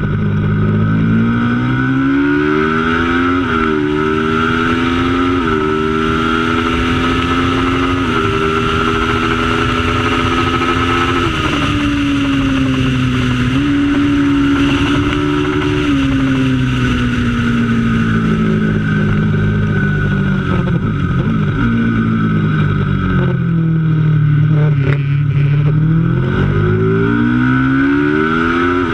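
Racing motorcycle engine accelerating hard up through the gears, its pitch climbing and then dropping sharply at each upshift. Later the pitch falls away steadily as the bike slows for a corner, then climbs again as it accelerates out.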